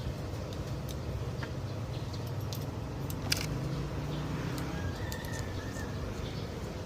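Scattered light metallic clicks and clinks of hand tools and mounting hardware being handled, over a steady low background hum.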